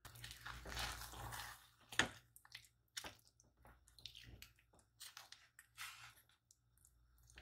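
Silicone spatula stirring and whipping thick mashed potatoes in a pot: soft squelching and scraping, broken by short taps of the spatula against the pot, the sharpest about two seconds in. The potatoes are being beaten until thick and fluffy.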